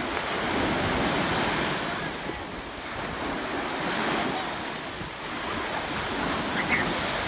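Small ocean waves breaking in the shallows and washing up the sand, the surf noise swelling and easing with each wave.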